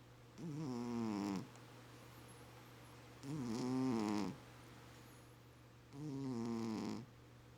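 A sleeping pet snoring: three pitched snores, each about a second long, coming roughly every three seconds.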